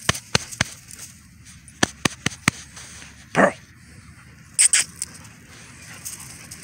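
Two dogs play-fighting: a scatter of sharp clicks in the first two and a half seconds, one short dog vocalization about three and a half seconds in, and a quick double scuffle of hiss near five seconds.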